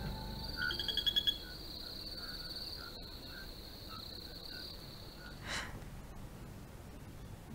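Night ambience of crickets trilling steadily, with a short run of about six quick chirps about a second in. The trill stops a little past five seconds with a brief rush of noise.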